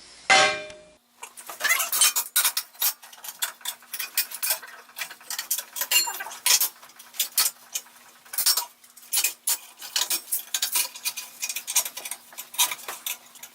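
Steel pieces and clamps clinking and knocking against each other as a corner plate is set and clamped against a flat steel plate: a rapid, irregular run of sharp metallic clicks and clanks over a faint steady hum.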